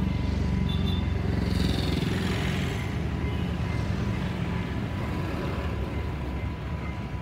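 Diesel train pulling away down the line: a low, pulsing engine rumble that slowly fades as it recedes.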